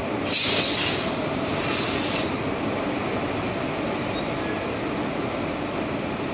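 Electric-hauled freight train rolling slowly past, its wagons' wheels running on the rails in a steady rumble. About a second in, a loud high-pitched screech rises over it in two swells and stops after about two seconds.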